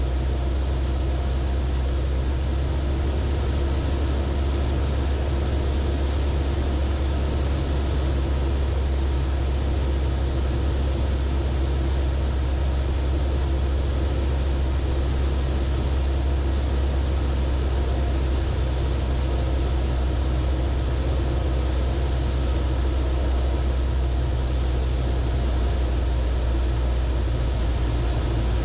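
Zenith CH 650 light sport aircraft's engine and propeller droning steadily at reduced power on descent for landing, heard inside the cockpit.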